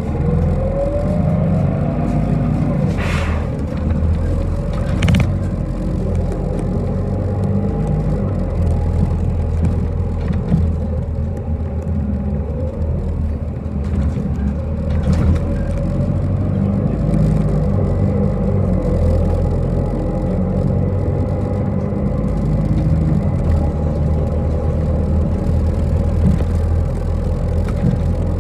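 City bus running, heard from inside the cabin: a steady low engine and road rumble, with a whine rising in pitch near the start and two short knocks or rattles a few seconds in.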